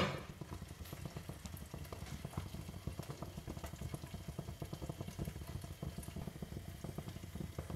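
Prawns, onions and chillies cooking covered in a wok, bubbling and crackling faintly under a glass lid that clinks into place at the very start.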